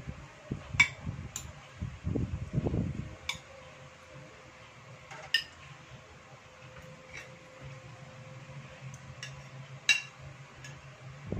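Metal fork and spoon clinking and scraping on ceramic plates: a handful of sharp clinks spread a few seconds apart, the loudest about a second in and near the end. Chewing sounds in the first three seconds, over a faint steady hum.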